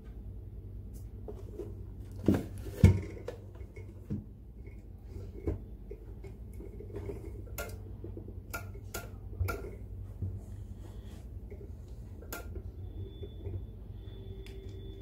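Handling of a metal impulse bag sealer: two loud knocks about two seconds in as it is put down on a hard surface, then scattered small clicks and rattles as a black tie is undone from its sealing arm.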